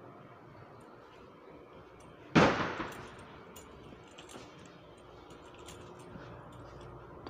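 A single loud, sharp bang a little over two seconds in, ringing briefly as it dies away, followed by faint scattered clicks and taps.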